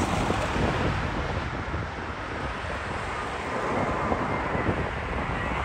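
Wind buffeting the microphone over the steady rumble of a Boeing 787's twin jet engines on final approach to land. A faint engine whine comes in near the end as the aircraft draws closer.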